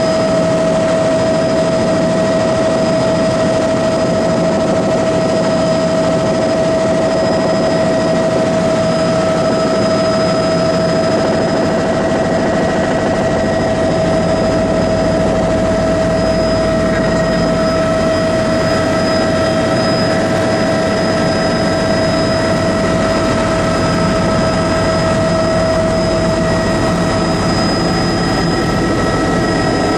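Aircraft engine droning steadily, heard from inside the cabin in flight: a constant hum with one strong held high tone and fainter tones above it.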